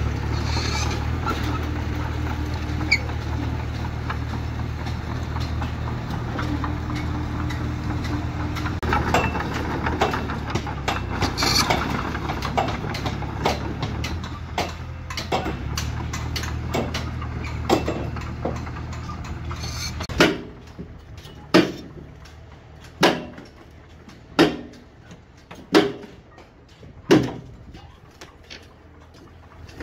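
Small Komatsu crawler bulldozer's diesel engine running steadily. About two-thirds of the way through the engine drops away, and a regular series of sharp knocks begins, about one every second and a half, at a concrete pour into wall formwork.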